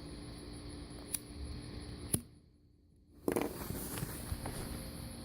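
Faint rustling and footstep noise with two sharp clicks. Near the middle the sound cuts out entirely for almost a second, then the rustling resumes.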